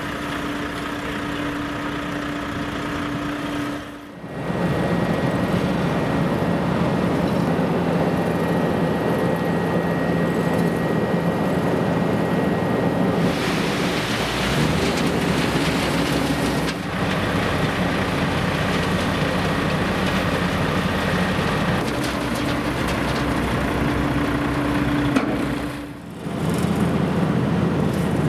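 Heavy engines running steadily with a dense rumble, as from road-repair machinery at work. The sound dips briefly about four seconds in and again near the end.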